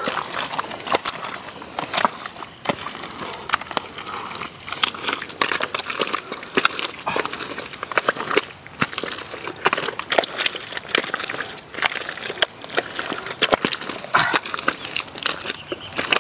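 Bare hands digging and scooping through thick wet mud: a dense, irregular run of squelches and wet slaps.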